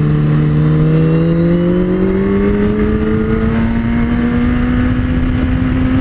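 Sport motorcycle engine pulling hard out of a corner, its pitch climbing slowly and steadily as the bike accelerates, with wind noise underneath.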